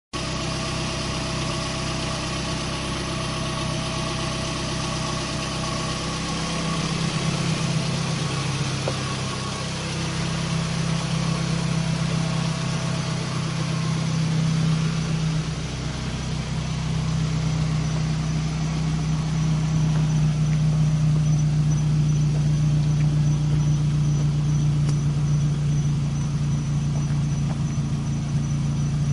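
Dayton Titanic 15-inch car subwoofer, driven at about 800 watts, playing loud sustained bass notes that change pitch every few seconds. The recording distorts because it is so loud.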